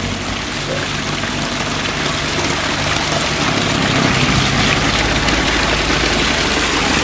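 Small roadside waterfall: spring water splashing steadily down over rocks and onto hands held in the flow. A low steady hum sits underneath.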